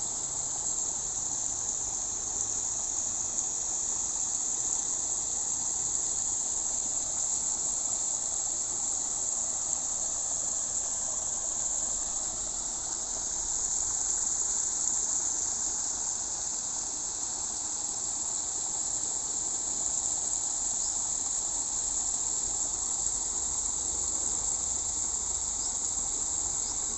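A chorus of insects trilling steadily and high-pitched, without a break.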